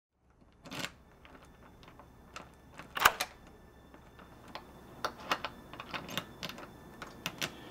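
Series of irregular light clicks and ticks over a faint low hum, with one louder click about three seconds in; the clicks come closer together, about three a second, in the last few seconds.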